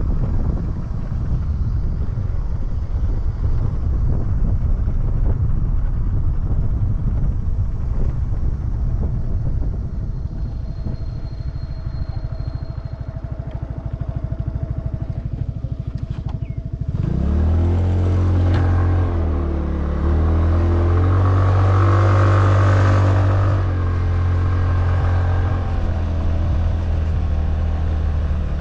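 Motorcycle being ridden down a steep concrete track, its engine and road noise making a dense rumble. About two-thirds of the way in, a steady, louder engine drone takes over and holds to the end.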